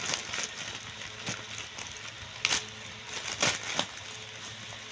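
Plastic courier mailer bag being torn open by hand: crinkling plastic with a few sharp rips, the loudest about two and a half and three and a half seconds in.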